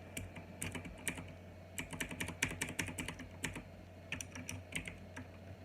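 Typing on a Qisan Magicforce 68 mechanical keyboard with clicky OUTEMU Blue switches: irregular key clicks, with a quick run of keystrokes in the middle and short pauses between.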